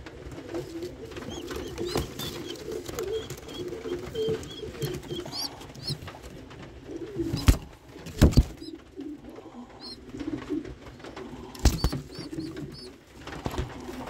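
Domestic pigeons cooing continuously in a loft, with thin high peeps now and then. Three sharp knocks, about halfway through and near the end, are the loudest sounds.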